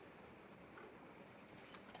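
Near silence: room tone with a couple of very faint ticks.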